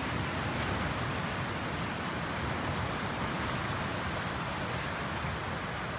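Ocean surf breaking and washing onto a beach, a steady even rush of noise with no distinct crashes.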